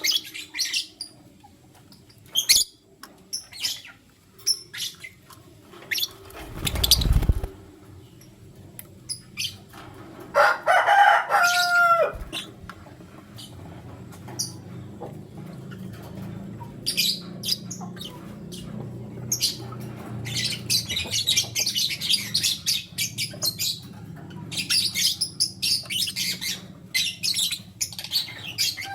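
Lutino lovebirds chirping in short, sharp calls, with a brief flutter of wings about seven seconds in and a longer warbling call with gliding pitch around eleven seconds. Rapid high chatter fills the last third, over a steady low hum.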